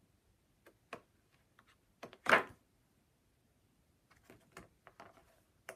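Large softcover paper doll books handled on a tabletop: a few light taps, then a louder paper swish about two seconds in, followed by a run of soft paper rustles and clicks.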